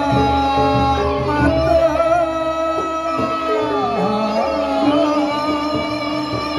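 A man sings a Sasak lawas song into a microphone, accompanied by a bamboo suling flute, both amplified through a PA speaker. The melody moves in long held, ornamented notes that slide and bend in pitch.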